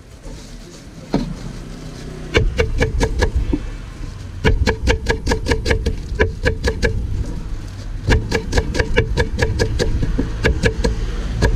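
Knife chopping fresh parsley on a wooden cutting board: quick runs of sharp taps, about six a second, starting about two seconds in and pausing briefly twice, over a low steady hum.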